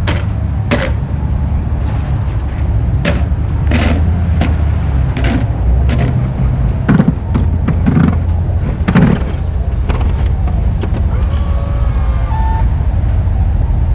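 Snowplow vehicle's engine running with a steady low rumble, and irregular knocks and scrapes as it pushes and piles snow and ice.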